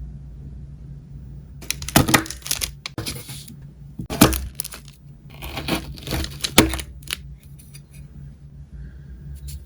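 Crunchy chocolate bar with a crisp sesame filling being broken or cut: crackling crunches in three bursts, the loudest about two and four seconds in, with a few faint ticks near the end over a steady low hum.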